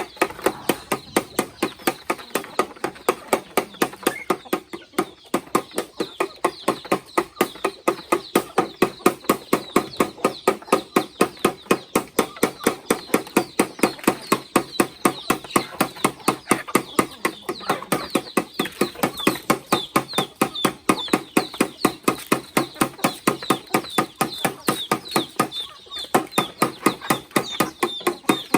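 Chickens clucking over a steady, even knocking of about three or four knocks a second, the loudest sound throughout.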